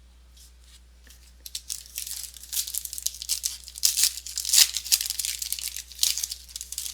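Trading-card pack wrapper being torn open and crinkled: a run of crackly, high-pitched rustling and tearing that starts about a second and a half in and tails off near the end.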